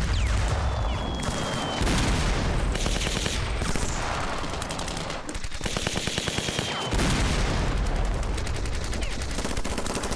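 Battle sound effects: rapid machine-gun and rifle fire in long bursts, broken by two heavy shell explosions about 2 and 7 seconds in. A short whistle comes just before each explosion.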